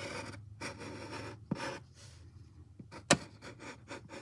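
A drawing tool scratching across paper in several short strokes, with a sharp tap about three seconds in.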